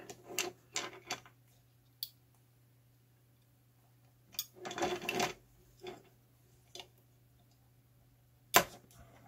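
Steel tweezers clicking and tapping against a circuit board and its housing while a component lead is positioned: a handful of separate small ticks, with a brief rustle about five seconds in and a sharper click near the end. A faint steady hum lies underneath.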